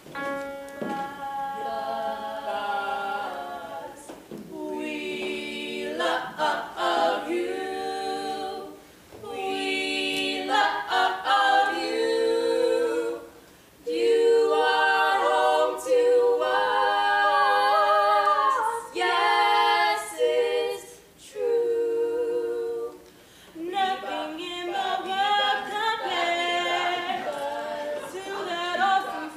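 A trio of girls' voices singing a cappella in close harmony, a musical-theatre song sung in phrases with short breaks between them.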